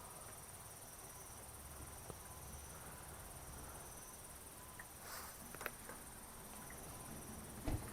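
Faint night ambience: insects trilling steadily in the background, with a few small soft knocks and a short dull thump near the end.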